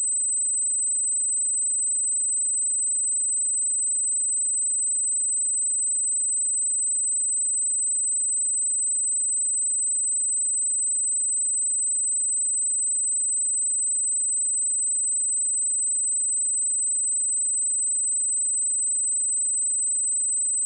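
A single steady 8088 Hz sine-wave test tone, a constant high-pitched whistle-like tone at even level, used to check speakers or headphones.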